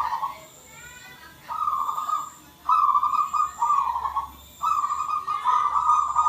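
Zebra dove (perkutut) cooing: a run of short coo phrases, each under a second long, repeated with brief gaps between them.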